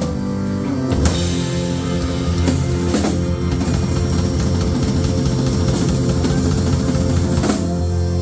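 Live rock band (electric guitar, bass and drum kit) playing a loud held chord, with drum and cymbal hits over it, as the song closes.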